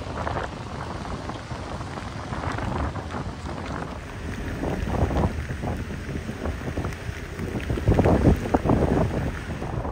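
Gusty wind buffeting the microphone over the noise of boats in rough water, swelling to its loudest gust about eight seconds in.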